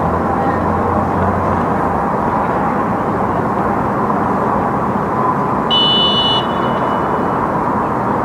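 A referee's whistle gives one short, shrill blast about six seconds in, over a steady rushing outdoor background noise.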